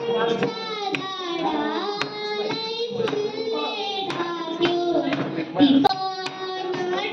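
A young girl singing into a microphone, holding long notes, with scattered hand claps from the people around her.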